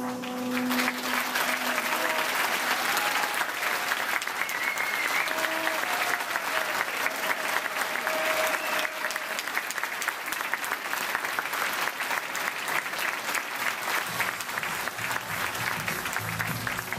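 Audience applauding: a dense, steady clatter of many hands clapping as the music stops. Music starts again under the applause near the end.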